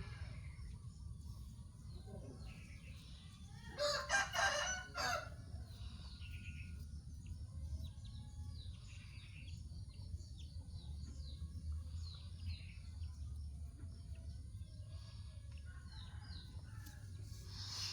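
A rooster crows once, about four seconds in, over small birds chirping on and off and a steady low hum.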